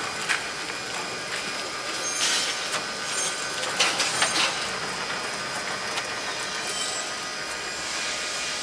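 Aircraft wheels and a small caster tail dolly rolling over asphalt as a light plane is pushed by hand, a steady rumble with a few sharp clicks and knocks.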